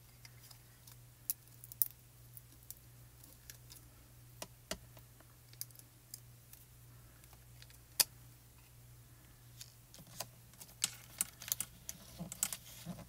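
Scattered light clicks and taps of small plastic and paper craft pieces being handled and fitted by hand, with one sharper tap about eight seconds in and a quick run of clicks near the end as the piece is pressed onto the card. A faint steady low hum lies underneath.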